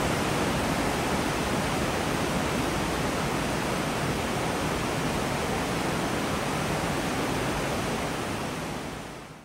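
Water from a dam release rushing steadily over the crest spillway openings of the stone-faced Sengari Dam and down its face, a continuous waterfall roar. It fades out in the last second.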